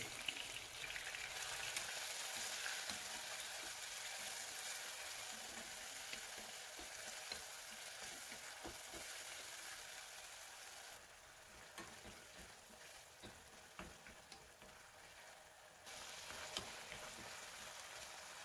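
Shrimps sizzling in hot oil in a non-stick wok, with a wooden spatula stirring and now and then clicking against the pan. The sizzle eases somewhat past the middle and picks up again for the last couple of seconds.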